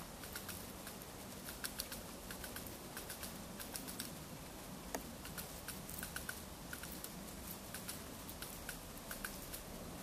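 Japanese pygmy woodpecker pecking at a dry dead stem: an irregular run of light, quick taps, a few of them louder.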